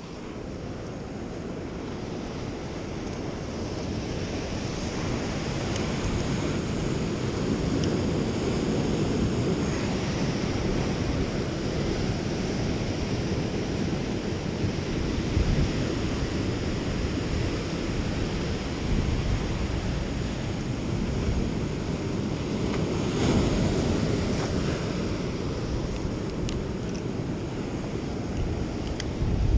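Surf breaking and washing over the jetty rocks just below, with wind blowing on the microphone. The rushing swells and eases, building over the first few seconds and loudest a little after two thirds of the way through.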